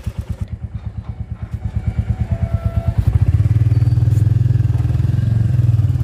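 Motorcycle engine running with a steady low pulsing beat; about three seconds in it gets louder as the bike pulls away.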